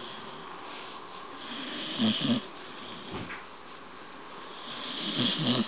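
Staffordshire Bull Terrier snoring while awake: two snoring breaths, about two seconds in and again near the end, each a hissing breath with a low rattle.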